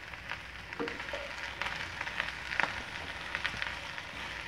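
Sliced shallots, garlic and onion frying in hot oil in a nonstick pan, stirred with a spatula: a light, steady sizzle with many scattered small crackles.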